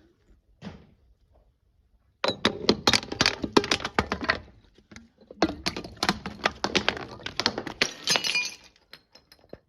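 Glass being crushed and broken: dense sharp cracking and crunching in two bouts of a few seconds each, starting about two seconds in, with a short pause between.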